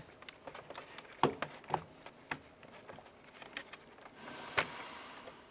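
A handful of light, separate plastic clicks and taps: a small pick prying up a locking tab and the side mirror's electrical connector being unplugged from the door wiring.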